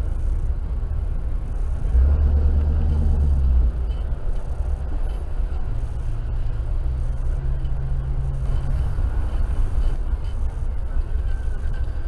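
Low engine rumble of a car creeping along at walking pace, louder for a couple of seconds about two seconds in, then settling to a steady low drone.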